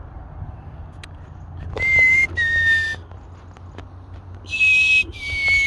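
A person whistling close by: two short two-note phrases, each a clear note stepping down slightly to a second one, with breathy hiss around the notes. A steady low rumble sits underneath.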